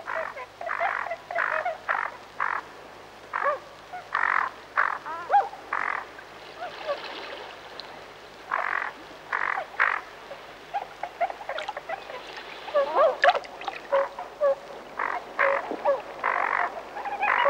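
Tundra (Bewick's) swans calling: a run of short honking calls, about two a second, broken by a pause of a couple of seconds, with a few brief gliding notes among them.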